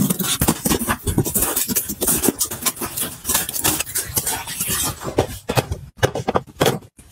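A taped cardboard box being opened by hand: packing tape pulled off and the cardboard flaps scraping and rustling, with many sharp clicks. After a short break near the end come a few separate knocks as a plastic tub is set into a plastic storage cart.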